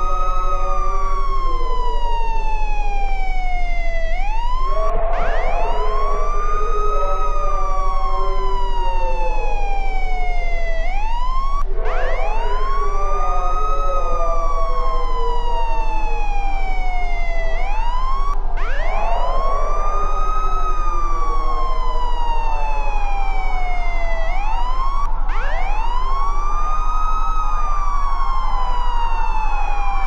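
Emergency alert siren tone: a wailing pitch that sweeps up quickly, then slides slowly down for a few seconds before starting over, repeating about every six to seven seconds. A steady low hum runs underneath.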